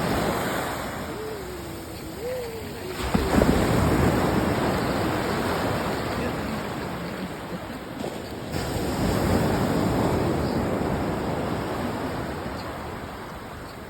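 Ocean waves breaking and washing up the shore. The surf surges about three seconds in and again about eight and a half seconds in, each time fading away slowly.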